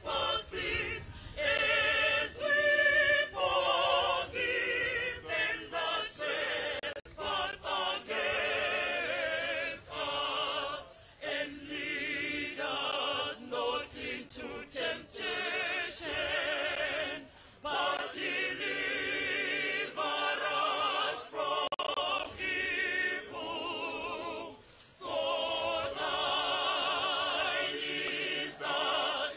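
Mixed choir of men and women singing with vibrato, in phrases broken by short pauses.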